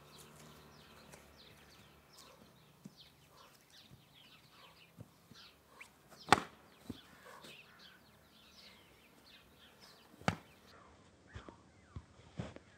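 Foam training sabres striking in sparring: a sharp hit about six seconds in is the loudest, another comes around ten seconds, and a few quicker knocks follow near the end. Birds chirp throughout in short falling calls.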